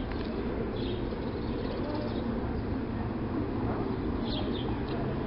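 Outdoor ambience: a steady low rumble with small birds chirping now and then, a few short high chirps about a second and two seconds in and again around four seconds in.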